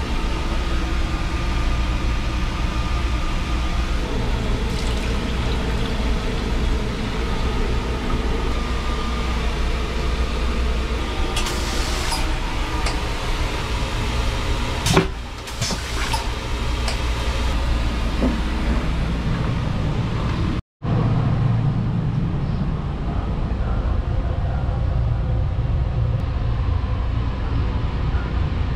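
A sleeper train's steady running rumble heard inside its toilet compartment, with the toilet flushing about halfway through: a few clicks, then one short, loud flush. The sound cuts out for a moment about two-thirds of the way through.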